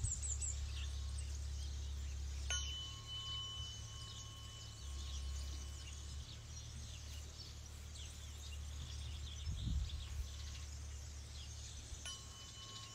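Tuning forks struck about two and a half seconds in and again near the end, each strike leaving two steady tones, one high and one lower, ringing for a few seconds before fading.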